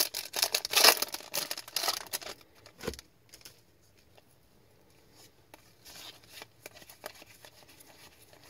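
Foil wrapper of an Upper Deck MVP hockey card pack being torn open and crinkled for about two seconds, followed by a single soft knock. Later come faint rustles and ticks of the cards being handled.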